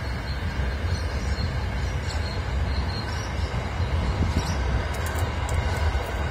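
Freight train's container wagons rolling over a railway bridge: a steady low rumble of wheels on rail, with a few sharp high clicks about five seconds in.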